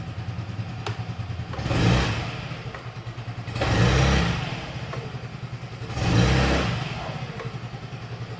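Yamaha Mio Gear S scooter's four-stroke, two-valve SOHC engine idling, blipped three times about two seconds apart, dropping back to idle after each.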